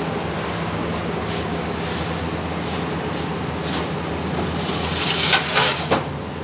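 Steady low hum of commercial kitchen equipment. About five seconds in comes a short burst of crackly, scraping noise.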